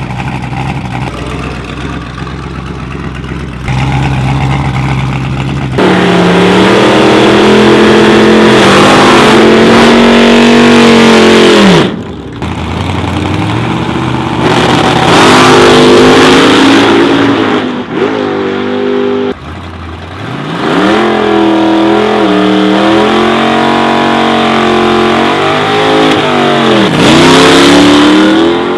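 A 1964 Ford Fairlane 500's engine idling roughly for the first few seconds, then revved hard and held high three times. Each time its pitch climbs and then falls away, and the first run cuts off suddenly about twelve seconds in.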